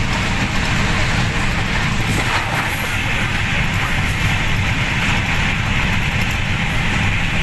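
Steady running noise of a moving passenger train, heard from inside the coach: a continuous loud rumble of the wheels on the rails.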